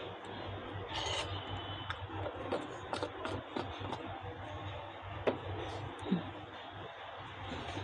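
Steady background hum and hiss, with scattered faint light clicks and taps.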